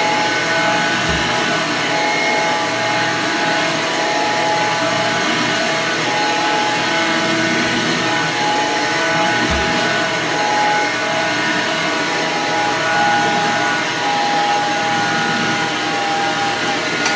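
The brushed electric motor of a red Hoover runabout running steadily: a rushing air noise with a whine that wavers slightly in pitch, and two brief low thumps, one about a second in and one about halfway.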